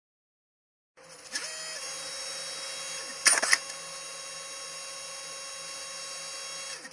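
Electronic sci-fi interface sound effect: a steady synthetic hum with a high whine starts about a second in. Short crackling glitch bursts come about two seconds later and again near the end.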